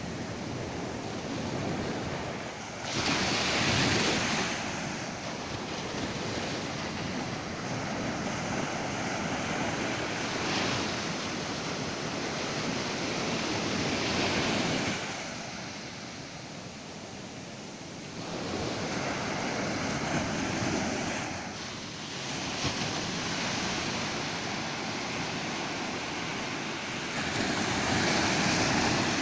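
Ocean waves breaking on a beach, swelling into a louder rush every several seconds and washing back between, with wind buffeting the microphone.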